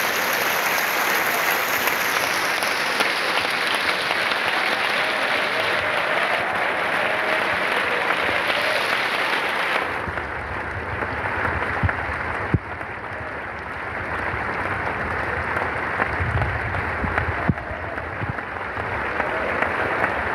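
A large opera-house audience applauding steadily throughout a curtain call. The clapping turns duller about halfway through, with a few faint knocks near the microphone later on.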